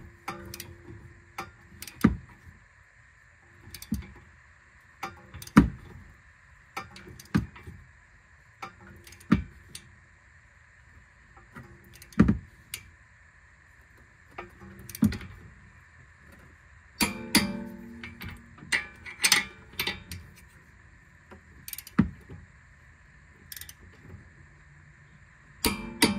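Hand tools clinking and knocking on metal while the front strut's lower mounting bolts are worked on: scattered sharp metallic clicks every second or two, with a quick run of ringing clanks about two-thirds of the way through.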